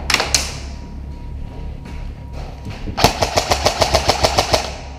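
M4-style airsoft electric rifle firing a rapid full-auto burst of about a dozen shots about three seconds in, after a couple of sharp cracks at the start.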